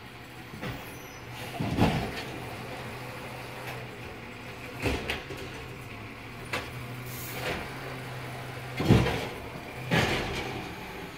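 A few dull knocks and rustles, the loudest about nine seconds in and another right after, over a steady low hum.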